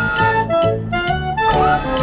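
Instrumental background music: a bass line stepping from note to note in an even beat under a melody.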